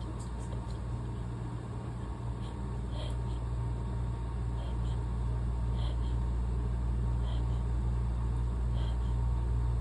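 A steady low rumble that slowly grows louder, with a few faint short high ticks now and then.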